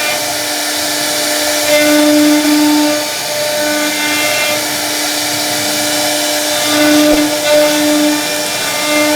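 CNC router spindle running steadily while carving wood: a constant high whine with a hiss of cutting underneath, the whine swelling and fading every second or so as the bit works through the cut.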